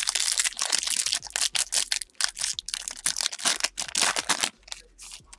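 Foil trading-card pack wrapper being torn open and pulled off the cards by hand: a fast run of crinkling and crackling that stops about four and a half seconds in.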